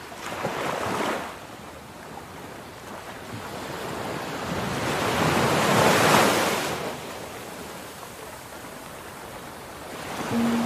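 Ocean surf: waves breaking and washing in, a short surge in the first second and a bigger one that builds to a peak about six seconds in, then falls away.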